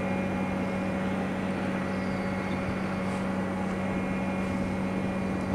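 Steady low mechanical hum with a constant tone, unchanging throughout.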